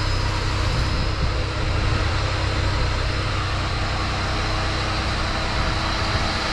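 Electric air pump running steadily as it deflates an air mattress: a constant whirring hum with a steady low rumble underneath.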